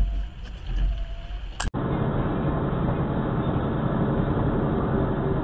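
A low rumble with a few faint knocks, then an abrupt cut a little under two seconds in to steady engine and road noise heard from inside a truck cab driving on a snowy road.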